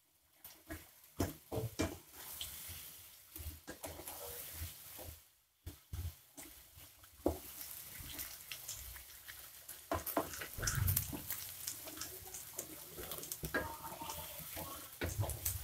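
Chunks of garadu (yam) deep-frying in hot oil in a kadai, sizzling steadily. A metal slotted spatula stirring the pieces clicks and scrapes against the pan again and again.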